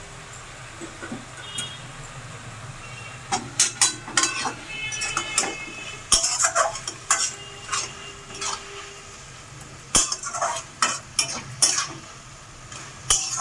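A steel spatula scraping and clacking against a metal kadai as a thick ash gourd and coconut mixture is stirred over a gas flame, in irregular strokes that begin about three seconds in. The mixture is being cooked down to dry off its last water before it is taken off the heat.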